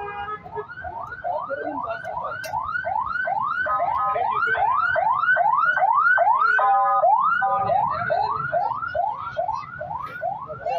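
Electronic car alarm sounding a fast repeating rising whoop, about two and a half sweeps a second, loudest in the middle, with a brief steady tone cutting in about seven seconds in.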